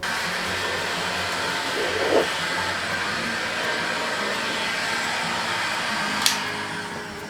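Steady rushing noise, like air from a small blower, starting suddenly and easing off near the end, with a sharp click about six seconds in.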